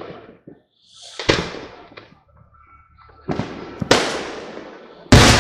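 Aerial fireworks shells bursting at a distance: a series of about five booms, each trailing off in echo. Near the end a louder bang sets off a steady rush of noise.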